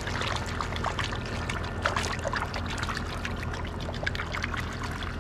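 Water in a plastic kiddie pool sloshing and trickling as a hand stirs and splashes it, a steady run of small irregular splashes and drips.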